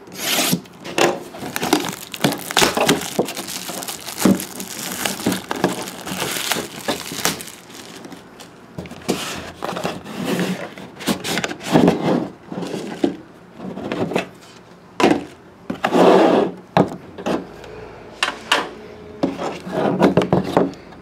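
Cardboard hobby box of trading cards being cut open and unpacked by hand: irregular scraping, rustling and tearing of the box's seal and cardboard, with the inner box sliding out of its sleeve and short knocks of cardboard on the table.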